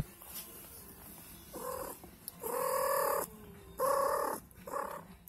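Siamese-mix mother cat vocalizing: four drawn-out calls of steady pitch in a row, the middle two the longest and loudest.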